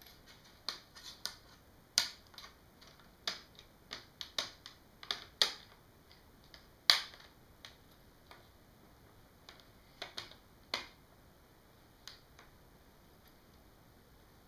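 Plastic screen bezel of a Toshiba U845 laptop being pressed back onto the lid, its clips snapping into place as a run of sharp, irregular clicks. The loudest come about two seconds and seven seconds in, and they thin out near the end.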